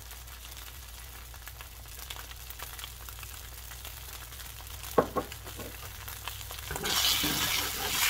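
Seitan cutlet frying slowly in oil on low heat in a nonstick pan: a soft, steady sizzle with fine crackles. A few sharp clicks come about five seconds in. Near the end the sizzle suddenly turns much louder as the cutlet is turned over with tongs.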